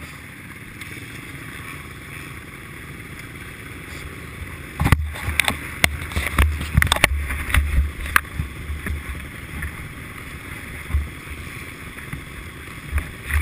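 Several motocross bikes idling together, a steady hum through the camera housing. About five seconds in, a run of knocks and rubbing as a jersey sleeve wipes across the camera, easing off a few seconds later.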